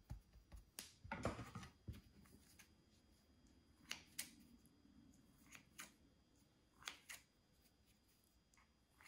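Kitchen scissors snipping through soft raw dough: several soft, short snips, mostly in quick pairs. There is a louder handling noise about a second in.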